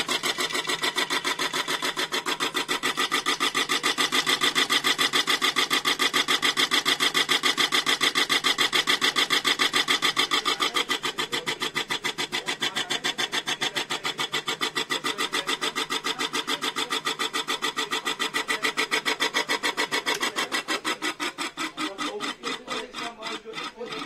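Ceiling fan motor spinning with a fast, rhythmic scraping rub on every turn: the fault noise the fan is being repaired for. The rubbing rhythm slows and weakens toward the end.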